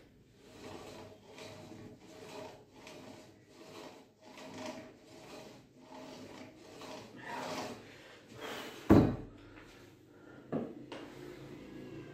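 Cable crossover machine's cable running back and forth over its pulleys, about a dozen rubbing whirs in quick succession, each with a faint hum. Then a loud clank about nine seconds in as the weight plates come down, and a second smaller knock.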